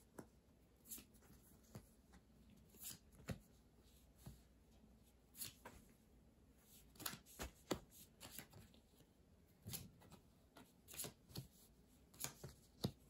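Tarot cards being dealt one at a time onto a cloth-covered table: quiet, irregularly spaced soft taps and slides of card on cloth and card.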